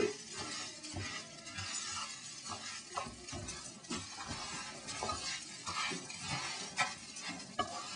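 Arborio rice sizzling in melted butter and onions in a frying pan while a spoon stirs it, with irregular light scrapes and clicks of the spoon against the pan. The rice is toasting to take on a buttery coating.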